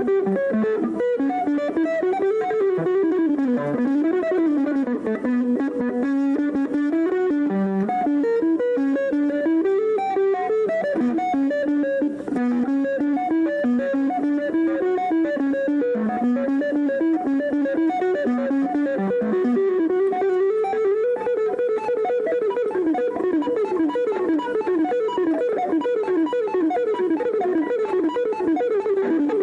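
Guitar playing fast single-note melodic runs that wander up and down. About two-thirds of the way through it settles into a rapid repeating figure of alternating notes.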